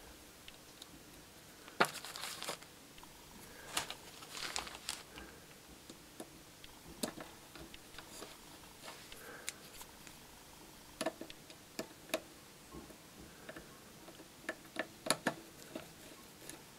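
Irregular small metallic clicks and taps from a thin screwdriver turning the centre screw of a paraffin heater's toothed wick-adjuster gear wheel, with bunches of clicks every few seconds.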